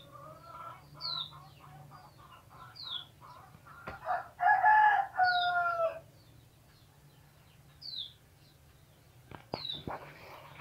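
A rooster crowing once, loud, about four seconds in, lasting about two seconds. Small birds chirp with short high falling notes every second or two, and a few sharp clicks come near the end.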